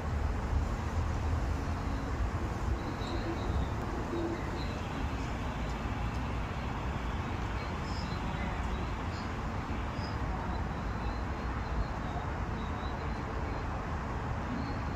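Steady outdoor background noise with a low rumble, with faint short bird chirps now and then.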